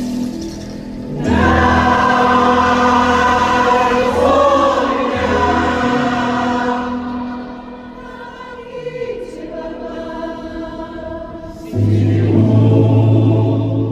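Choir singing held chords in harmony, phrase by phrase. The sound eases off in the middle and comes back louder and fuller, with a strong low part, near the end.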